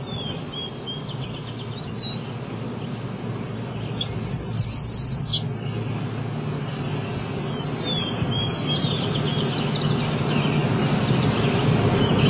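Small birds chirping and tweeting in short, sweeping high calls over a steady low hum, with a louder, held high note about four and a half seconds in.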